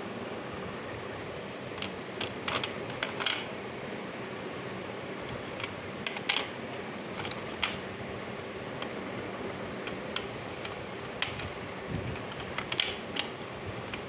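Pieces of butter-roasted baked clay (nakumatt) being snapped and crumbled by hand, giving sharp, dry cracks and crunches in irregular small clusters from about two seconds in, over a steady hiss.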